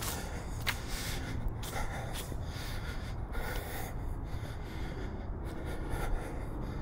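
A walker's breathing close to a camera's built-in microphone: repeated short, hissy puffs of breath over a steady low rumble.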